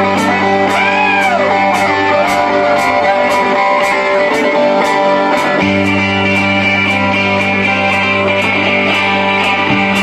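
Live rock band playing an instrumental passage: an electric guitar lead with bent notes over a steady cymbal beat. The low bass drops out for a few seconds in the middle and comes back in.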